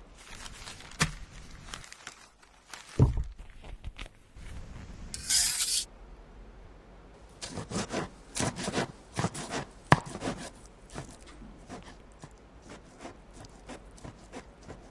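Foley sound effects made with props: scattered sharp knocks and rubbing scrapes, a heavy thud about three seconds in, a short hissing rush around five seconds, then a quick run of clicks and rustles.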